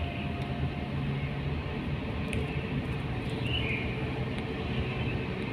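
Steady road and engine noise heard from inside a moving car's cabin: an even low rumble with a faint hum.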